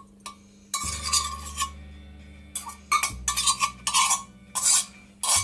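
A metal spoon scraping and clinking against a stainless steel bowl as melted chocolate is scraped out of it: about seven sharp clinks and scrapes, irregularly spaced.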